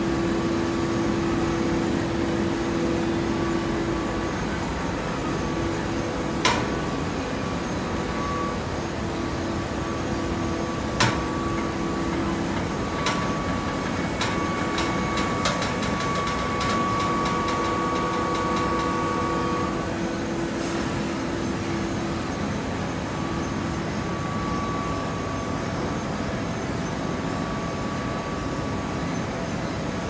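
Automatic horizontal hydraulic baler running, with a steady mechanical hum and several held tones. A few sharp knocks sound, and a flurry of quick clicks comes near the middle.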